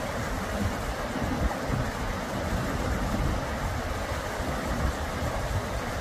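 Steady rush of flowing stream water, an even hiss over a low, uneven rumble.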